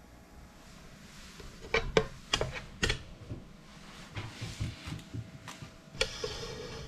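Kitchen work while cooking: a few sharp, irregular knocks of utensils or cookware, a brief rustle, then one more knock about six seconds in with a short ring after it.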